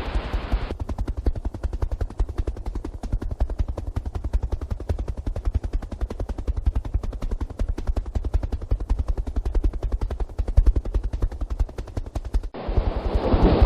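Helicopter rotor blades chopping close by: a fast, even thudding pulse over a steady low hum. It starts abruptly just under a second in and cuts off about a second before the end, with a windy hiss on either side.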